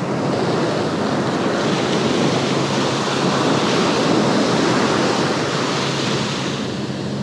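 Surf on a sandy beach: a steady rush of small waves breaking and foam washing up the sand, easing slightly near the end.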